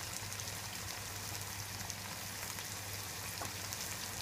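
Chicken and vegetables frying in olive oil in a wide pan: a steady sizzle with small crackles, over a low steady hum.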